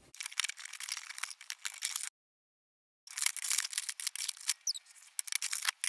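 Toy packaging being torn open and handled: dense, rapid crackling and rustling, broken by about a second of dead silence a couple of seconds in.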